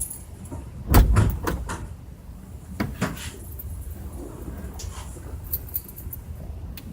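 Several knocks and clunks, the loudest about a second in and a pair near three seconds, over a low steady rumble.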